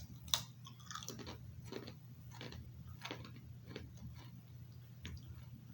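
Crunchy chewing of baked pita chips, with a crisp crunch about every half second to second; the sharpest crunch comes about a third of a second in. A low steady hum runs underneath.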